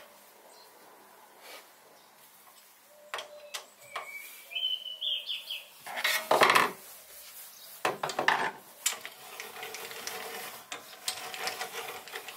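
Metal clinks, clicks and knocks of an Allen key and small tools working on the steel carriage and apron of a Sieg SC3 mini lathe as the apron is tightened up. A brief squeak comes about four and a half seconds in, and louder clattering comes around six and again around eight seconds.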